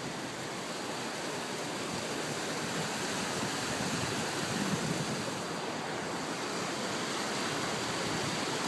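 Steady rush of water flowing through a dam that has been opened wide.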